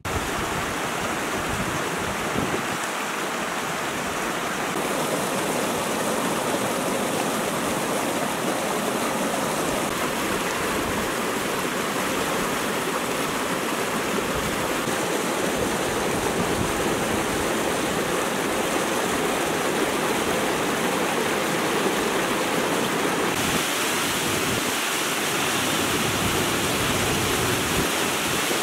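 Rushing water of a rocky mountain stream tumbling over boulders and small waterfalls, a steady hiss with no let-up. The sound turns brighter and hissier about five seconds in and again a few seconds before the end.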